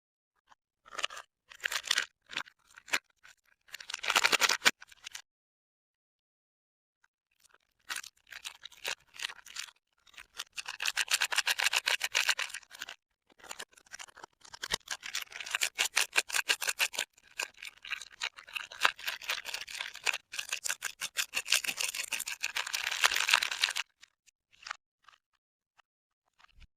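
Soap packaging being unwrapped by hand: crinkling and tearing of the wrapper in short bursts at first, then a long, dense stretch of crinkling from about eight seconds in, stopping near the end.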